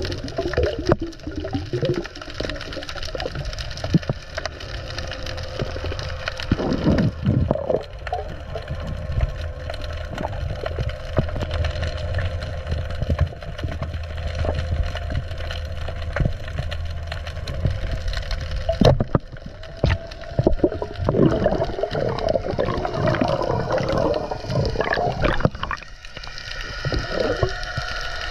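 Water churning and gurgling around a diver's camera, a continuous wash of water noise with irregular louder swells.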